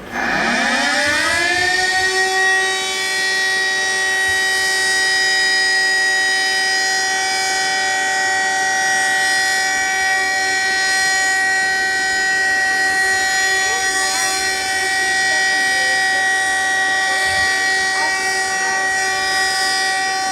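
Emergency alert alarm tone that sweeps up from a low pitch over about two seconds, then holds one steady, loud, horn-like chord of several pitches.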